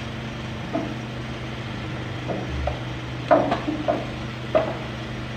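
Steel loading ramps at the back of a flatbed truck being shifted into place: a handful of irregular knocks and clanks, the loudest a little over three seconds in, over a steady low hum.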